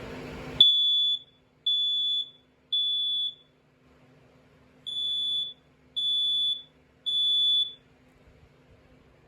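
First Alert SA304 smoke alarm sounding on test: two rounds of three loud, high-pitched beeps, the temporal-three evacuation pattern, with a pause between the rounds.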